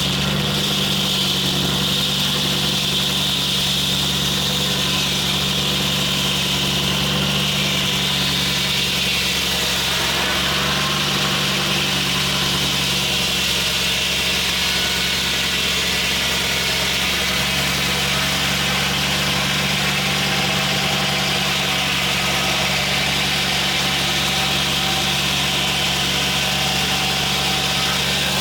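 Foley Belsaw M-14 circle sawmill running, with a steady engine drone under a continuous high whine.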